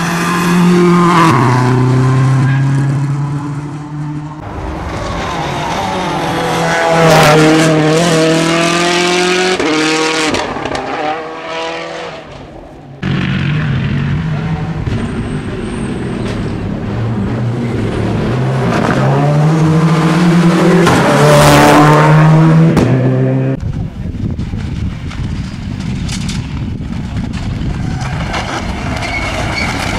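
Rally cars driven flat out on a narrow country road, engines revving high. The engine pitch climbs in steps through gear changes and falls away as each car goes past, several cars in succession.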